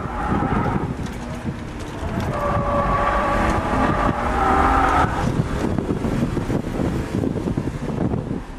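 BMW E36 M3's straight-six engine running hard under the rumble of road and wind noise inside the cabin, with the tyres squealing briefly at the start and again for about three seconds in the middle as the car slides through a corner.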